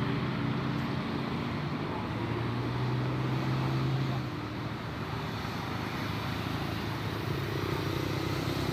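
Road traffic with a vehicle engine running: a low steady engine hum under tyre and traffic noise. The hum is strongest from about two to four seconds in, then the level drops slightly.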